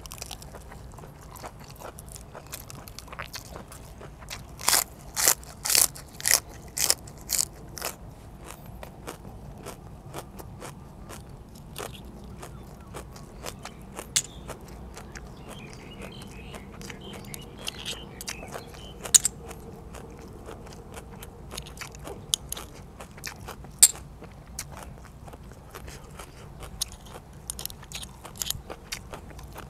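Close-up eating sounds: a run of about eight loud, crisp crunching bites into raw green vegetables, about two a second, between about five and eight seconds in. After that come scattered sharp clicks and snaps of a spoon and fingers working open blanched blood cockle shells, with chewing.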